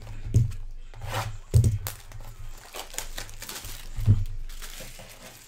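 Plastic shrink wrap crinkling and tearing as it is stripped off a sealed cardboard trading-card hobby box, in crackly patches. Three dull thumps come as the boxes are knocked and set down on the table.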